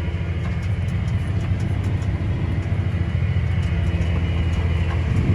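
Tractor engine running steadily under load while pulling a planter, a constant low drone heard from inside the cab.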